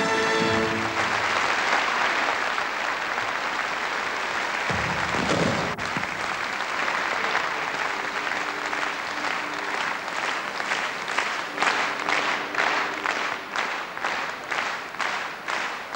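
Large audience applauding in a concert hall as the orchestra's final note stops about a second in. About ten seconds in, the clapping falls into a steady rhythmic beat of about two claps a second.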